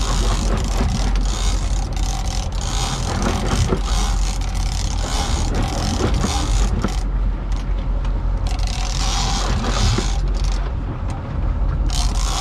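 Sportfishing boat's engines running with a steady low hum under a rush of wind and water, which eases briefly twice in the second half. A big-game reel is being cranked against a fish, a mechanical whir in the mix.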